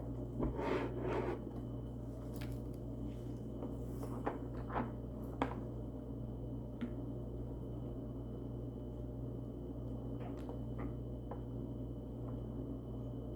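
Silicone Pop-It fidget toy bubbles being pressed, a scattered series of soft pops, bunched near the start and then spaced out, over a steady low hum.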